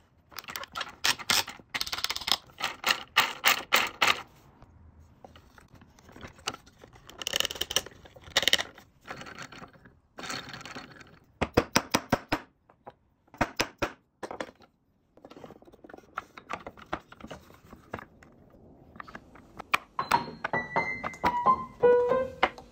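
Wooden parts of a gear-driven elephant automaton toy knocking and clicking together in bursts of quick taps while being fitted by hand. Piano music comes in near the end.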